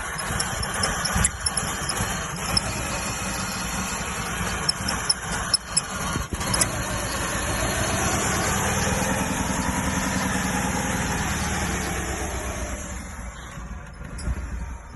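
2G Eclipse's 420A four-cylinder engine cranking and running unevenly with a squeal, a sign of its trouble starting and idling. About halfway through its pitch rises and swells, then the sound dies down near the end.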